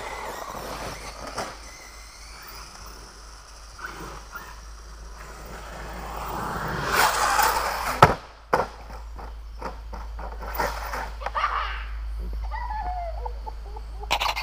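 Radio-controlled off-road car running over a dirt track, its motor and tyres growing louder as it comes near. About eight seconds in it crashes with a loud sharp knock, then a second knock as it tumbles, and smaller knocks follow.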